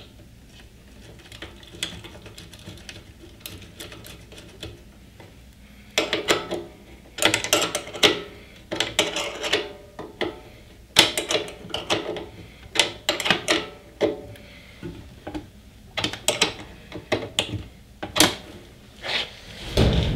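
Ratchet spanner clicking in short runs of rapid clicks as the nut holding a cable lug on a welder's internal terminal is done up, with fainter handling clicks for the first few seconds.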